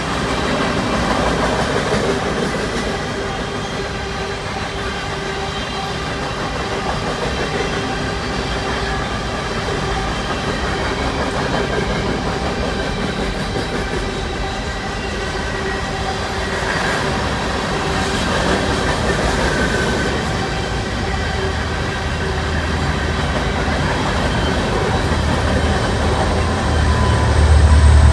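Freight cars rolling past at speed: a steady rumble and clatter of steel wheels on rail, with thin steady whining tones from the wheels. Near the end a deep low rumble swells as a mid-train distributed-power diesel locomotive arrives.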